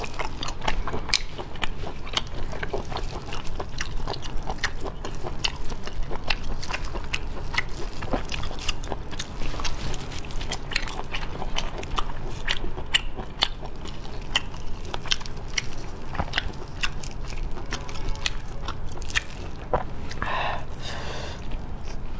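Close-miked chewing of sea snail meat, with many small wet clicks and smacks of the mouth.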